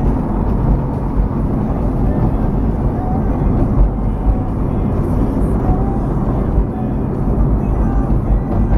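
Steady engine and tyre rumble heard from inside a car's cabin while driving on a wet road, with a few brief faint squeaks.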